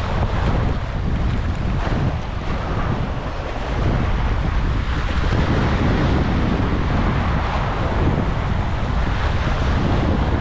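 Sea waves washing and splashing over jetty rocks, with wind buffeting the microphone in a steady low rumble.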